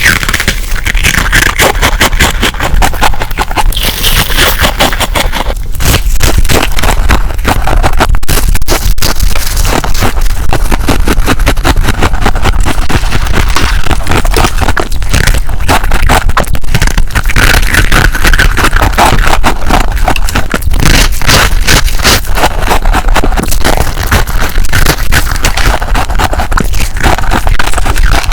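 Freezer frost being crunched close to the microphone: a loud, dense run of irregular crackling crunches.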